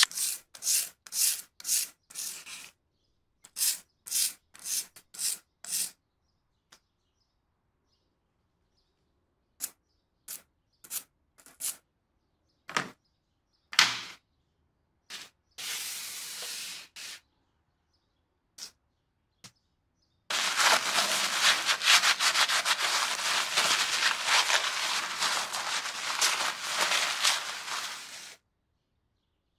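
A stiff nylon brush scrubbing a small metal lighter body in soapy water, in quick, even strokes of about two a second, in two short runs. Then a few scattered short clicks, and about eight seconds of steady rubbing as the lighter is dried in a paper towel.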